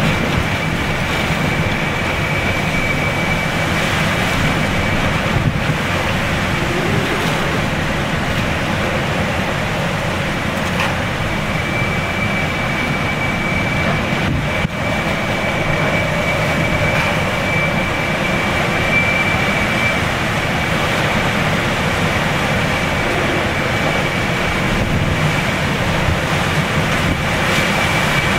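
Hurricane Isaac's winds howling hard and without a break, with wind buffeting the microphone. A thin, steady high whistle runs through the wind for long stretches, dropping out for a few seconds near the start.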